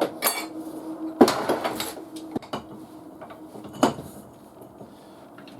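Metal objects clinking and knocking in a workshop: a few sharp clanks, the loudest a quick cluster about a second in and a single knock near four seconds, then fading quieter.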